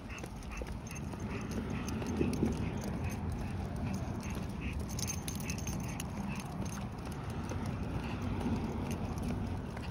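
A dog panting steadily, about three breaths a second, over the steady low rumble of a car driving.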